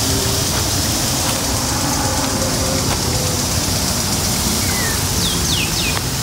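Steady rush-hour road traffic, a constant low rumble, mixed with the steady hiss of lawn sprinklers spraying water. A few short, falling chirps come near the end.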